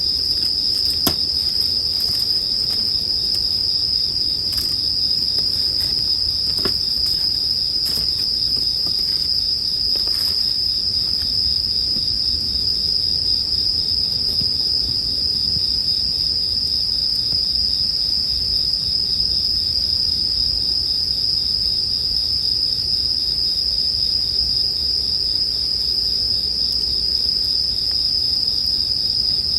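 Japanese bell crickets (suzumushi) singing in a steady, unbroken high chorus, with a few soft campfire crackles in the first ten seconds or so and a low steady rumble beneath.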